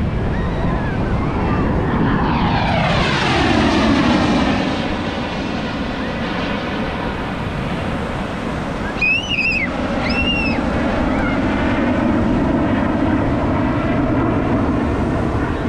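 An air-show aircraft flying past fast and low. Its loud rushing noise sweeps down in pitch as it passes a few seconds in, then goes on as a steady rumble. Two short high calls cut in about nine and ten seconds in.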